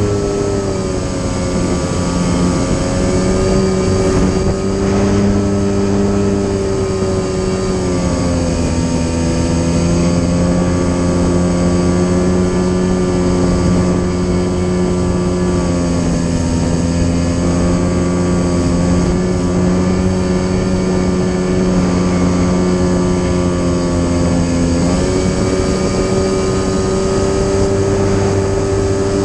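Electric motor and propeller of a radio-controlled Korda Dethermalizer model plane running in flight, heard from a camera mounted on the airframe. The steady drone steps down in pitch about a second in and again around eight seconds, as the throttle is eased, then steps back up near the end.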